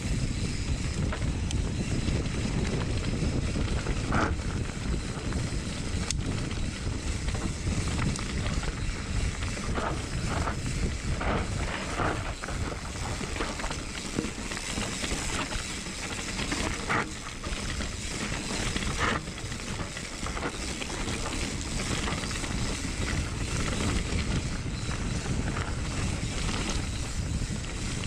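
Wind buffeting the microphone with steady road rumble during a fast downhill ride, broken by a few brief higher-pitched sounds.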